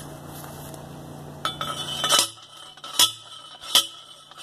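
Hand-held post driver pounding a steel T-post into the ground: five ringing metal-on-metal clanks, starting about a second and a half in, roughly one every three-quarters of a second.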